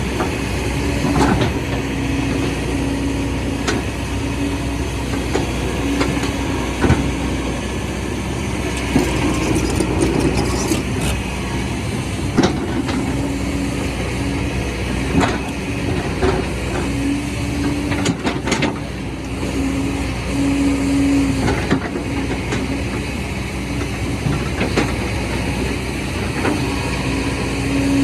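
Heavy machinery running steadily, with a low hum that comes and goes and scattered sharp knocks and clanks.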